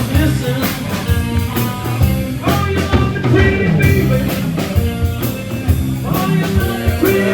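Live blues-rock band playing: electric guitar with bass and a drum kit keeping a steady beat.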